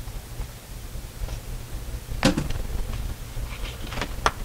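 An end cap is pushed onto the headrail of a set of window blinds and clicks sharply into place about two seconds in. A fainter click follows near the end, over a low steady hum.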